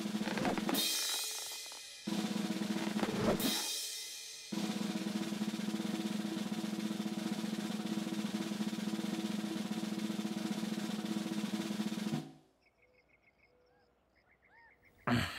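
Snare drum roll played with sticks: two shorter rolls, then a long, even roll of about eight seconds that stops abruptly. After a brief hush, something loud starts just before the end.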